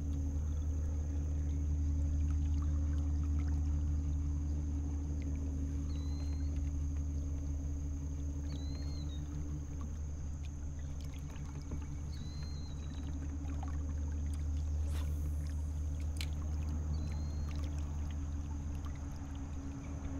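Motor of a small fishing boat running steadily as it moves upstream: a low hum with a thin high whine over it.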